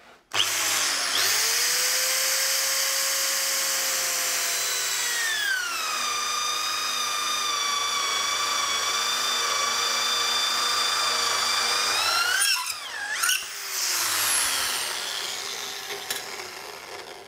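Handheld electric drill in a drilling stand boring a leg hole into a wooden stool seat, its motor whine steady at first, then dropping in pitch about five seconds in as it comes under load. Near thirteen seconds the pitch briefly rises and dips again, and then the drill winds down. The bit is blunt and in need of sharpening.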